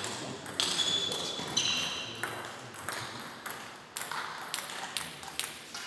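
Table tennis balls clicking irregularly off paddles and tables around the hall, with two short high squeaks in the first two seconds.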